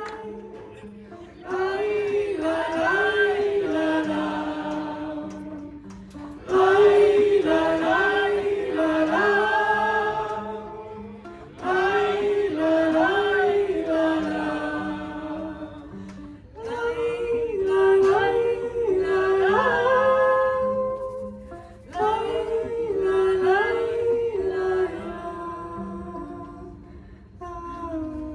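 Live vocal music: singing in repeated phrases about five seconds long, each ending in a short dip, over a quiet steady accompaniment.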